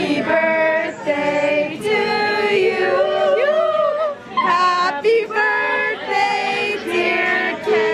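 A group of people singing a birthday song together, unaccompanied, in drawn-out held notes with several voices at once.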